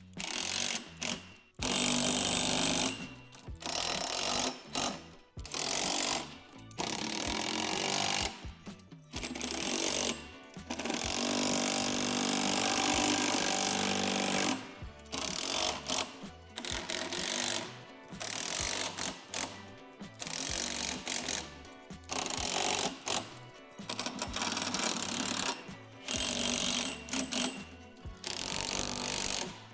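Power driver tightening bolts in repeated bursts of a second to a few seconds each, with short pauses between fastenings, as the teeter-totter's hardware is made secure.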